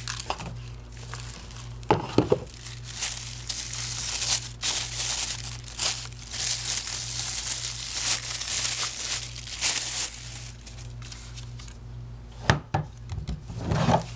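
Clear plastic bag crinkling and rustling as a portable Bluetooth speaker is handled and slid out of it, with a couple of sharp knocks. A steady low hum runs underneath.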